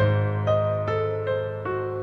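Background music: a keyboard plays single notes, two or three a second, over a held low note.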